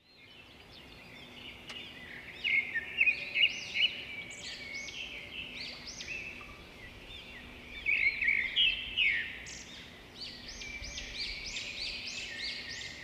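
Many small birds chirping and twittering in a dense, overlapping chorus of quick rising-and-falling calls. It fades in at the start and has louder bursts of chirping a few seconds in and again about eight seconds in.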